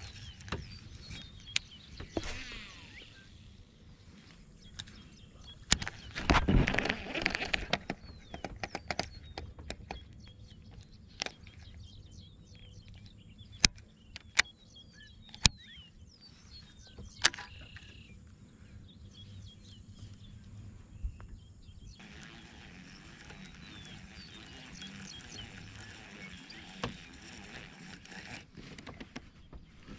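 Baitcasting rod and reel being cast and reeled in, with scattered sharp clicks and handling knocks and a louder stretch of rushing noise about six seconds in. Birds chirp faintly over quiet open-air background.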